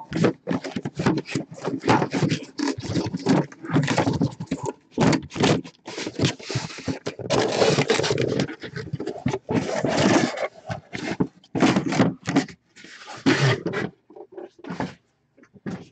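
Cardboard shipping case and shrink-wrapped trading card boxes being handled and slid against each other: irregular scraping and rustling, thinning out to a few separate scrapes near the end.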